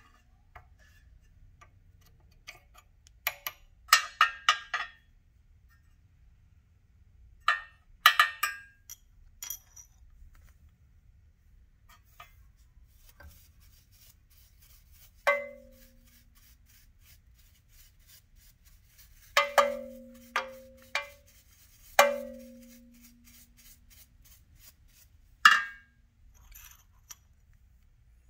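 Scattered metallic clicks and clinks from handling cut car keys and the vise of a key-cutting machine, with the machine's motor off. Several of the later clinks ring briefly with a low tone.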